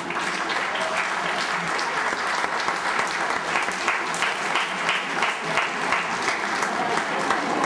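Theatre audience applauding, the clapping breaking out all at once at the start and going on steadily.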